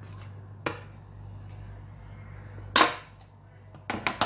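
Metal wire whisk and utensils knocking against a plastic mixing bowl: a few separate knocks, the loudest a little under three seconds in, then quick clicks near the end as whisking starts again. A steady low hum runs underneath.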